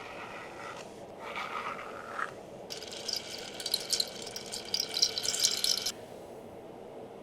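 Hair being washed: a softer rubbing sound for the first couple of seconds, then a dense crackling, hissing burst of about three seconds that stops abruptly.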